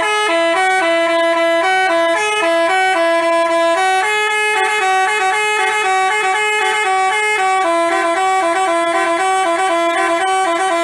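Basuri-type telolet bus horn playing a melody: a quick run of short, stepping notes in two pitches sounding together, like a tune played on horns.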